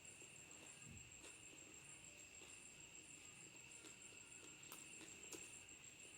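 Faint, steady chirring of crickets at night, with a few faint clicks.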